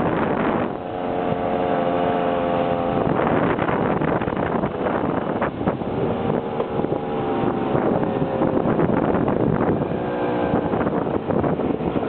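Simson two-stroke moped engines running at a steady cruising speed, with the engine notes rising and falling as the mopeds ride in a group. Wind buffets the microphone throughout.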